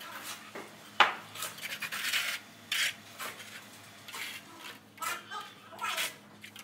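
Steel notched trowel scraping and combing wet cement mortar across a floor, in repeated scraping strokes with a sharp knock about a second in.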